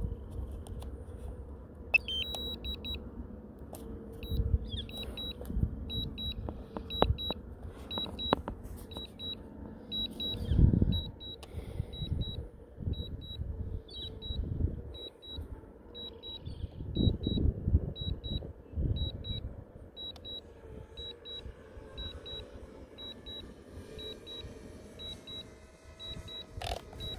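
Electronic beeper giving short, high double beeps, starting about two seconds in and repeating evenly about once a second, typical of a DJI FPV controller or goggles warning. Under the beeps, wind buffets the microphone in uneven low gusts.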